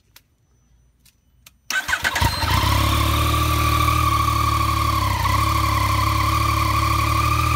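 2016 Yamaha FZ-09's 847 cc inline-three breathing through its stock exhaust: started nearly two seconds in with a brief crank, then idling steadily. A few faint clicks come before it fires.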